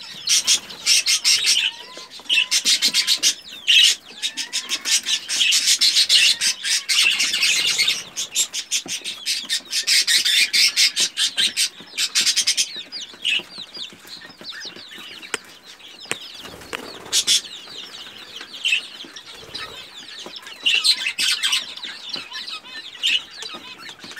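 Pekin bantam chicks scratching and pecking in a tray of chick crumb: repeated bursts of rapid scratching and rattling of the feed, with quieter scattered pecks between and a few soft peeps in the first few seconds.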